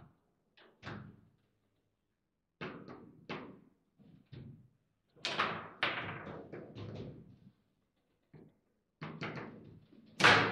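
Table football in play: the ball is struck by the figures on the rods and knocks against the table in quick, uneven groups of hard knocks. The loudest is a single hard shot near the end.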